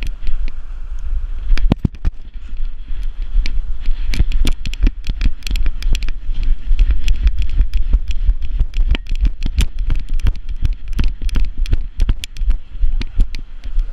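A GoPro in a harness on a moving dog's back, knocking and rattling in its mount with rapid irregular clicks, over a steady low rumble of wind on the microphone.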